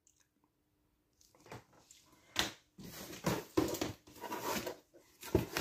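Cardboard box and packing paper being handled: near silence at first, then irregular rustling and scraping from about a second and a half in, growing busier and louder.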